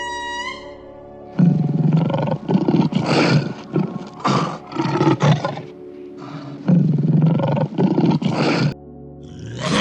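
Big cat growling and roaring, in two spells of rough, rasping roars with a short break between them, over steady background music. A different animal's falling call starts right at the end.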